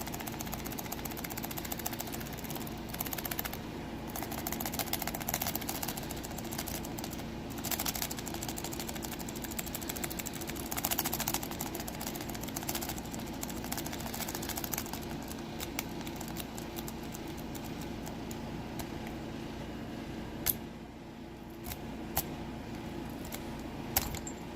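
A lock pick rake scraping rapidly in and out of a Best padlock's keyway with its pin stack clicking and rattling, in busier bursts for most of the stretch and then a few sharper single clicks near the end, as the rake keeps getting hung up on a pin. A steady low hum runs underneath.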